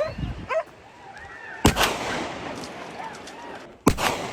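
Two gunshots about two seconds apart, each ringing out and fading, fired at wild boar on a driven hunt, with hunting dogs yelping just before the first shot.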